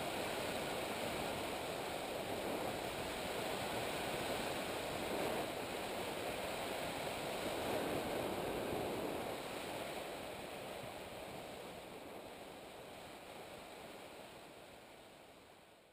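Steady rushing noise of an ultralight tow trike's engine and spinning propeller, blurred with wind on the microphone. It swells about halfway through, then fades away over the last several seconds.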